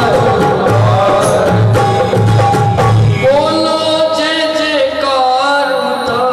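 Live Hindi devotional bhajan: harmonium chords with a steady low drum beat. About three seconds in, a man's voice comes in, singing a long, ornamented line over the held harmonium notes.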